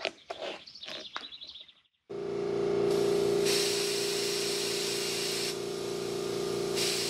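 Air compressor running with a steady, even hum, while compressed air hisses through a gauge-fitted inflator into a small tubeless mower tire. The hiss comes in two spells, a longer one from about three seconds in and a shorter one near the end. The first two seconds hold a few clicks and knocks as the air chuck is fitted onto the valve stem.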